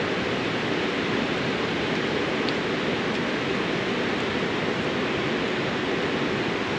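Mountain stream running: a steady, even rush of water.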